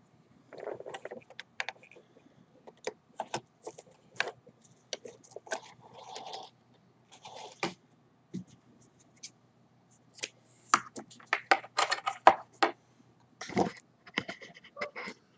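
Irregular clicks, scrapes and rustles of hands working at a Singer 128 sewing machine's needle and presser foot, pulling the stitched fabric scrap and its threads free. A quick run of clicks comes in the middle and a louder knock near the end.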